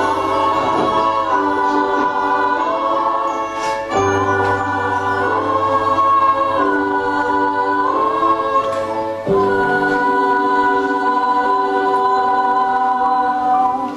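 Stage-musical music of slow, held choir-like chords that shift every second or so, without words. A low bass note sits under them and drops out about nine seconds in.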